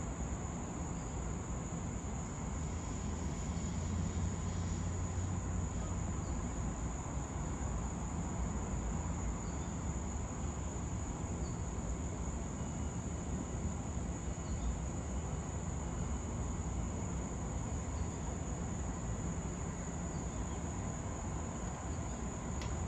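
Steady chorus of insects: a continuous high-pitched trill that does not change, over a low rumble.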